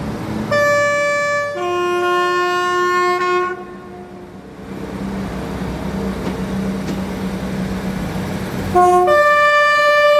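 Train horn sounding a two-tone blast, a higher note for about a second, then a lower one for about two seconds. The train then runs by with a steady low drone, and near the end the horn sounds again: a short low note, then a long higher note.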